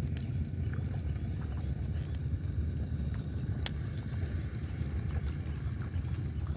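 Steady low rumble of wind buffeting the microphone, with a few faint ticks and one sharp click a little past the middle.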